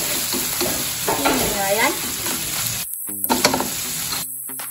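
Pork strips with garlic and black beans sizzling in hot oil in a wok while being stir-fried. The sizzle drops out for a moment about three seconds in and stops shortly before the end.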